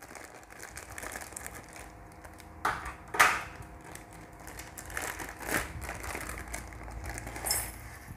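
Plastic instant-porridge packet crinkling and rustling as it is cut open with scissors and handled, with a few louder crinkles. Near the end the dry porridge is tipped from the packet into a steel bowl.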